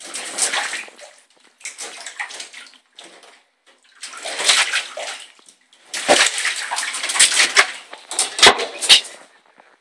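A cat splashing and scrambling in shallow water in a bathtub after falling in, in several irregular bursts. Two sharp knocks near the end as it clambers out.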